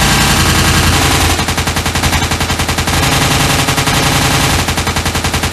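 Sustained automatic gunfire from a machine-gun sound effect: a rapid, unbroken string of loud shots dubbed over toy-gun play.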